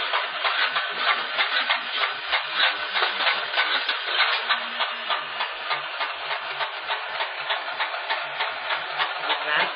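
Motor-driven spinning cutter discs of a homemade combat robot running at speed, making a fast, continuous mechanical rattle and clatter.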